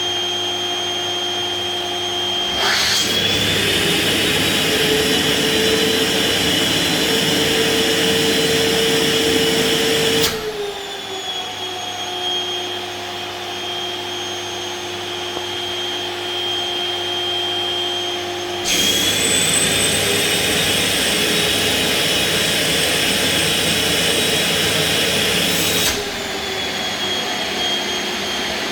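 LG 1600 W canister vacuum cleaner running with a steady motor whine. About three seconds in, it turns louder, with a rush of air and a slight rise in pitch. About ten seconds in, it drops back to the lower, quieter state, then goes louder again from about nineteen to twenty-six seconds.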